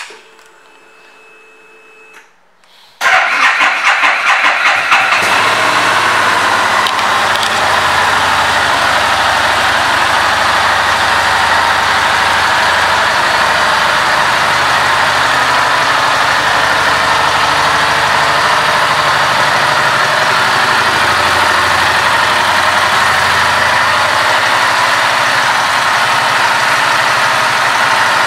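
2019 Harley-Davidson Street Rod's 750 cc V-twin engine starting about three seconds in, running unevenly for a moment, then idling steadily.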